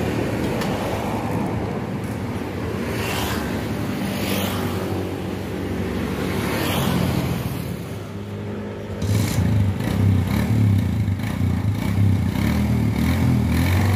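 A motor vehicle engine running steadily, growing louder about nine seconds in, with a few short scrapes of hand tools on metal.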